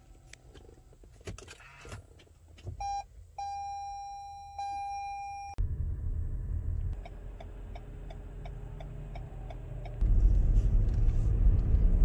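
Car chime: a short beep and then two longer steady tones, about three to five seconds in. Then engine and road noise inside the car's cabin with a faint regular ticking, about two to three ticks a second. About ten seconds in the engine and road noise grow suddenly louder as the car picks up speed.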